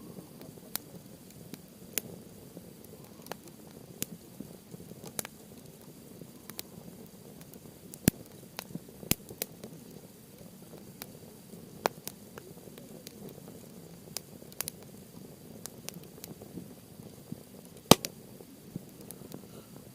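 Campfire of softwood and hardwood logs burning: irregular sharp crackles and pops over a low, steady rustle of the flames, with one loud pop near the end.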